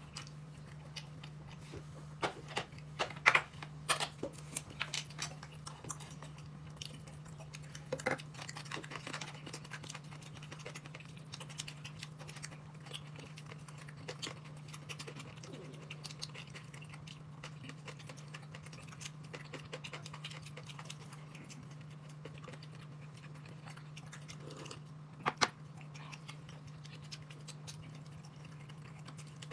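Mealtime eating sounds: scattered sharp clicks of tableware against bowls and some chewing, over a steady low hum. The clicks are thickest in the first several seconds, with one loud click near the end.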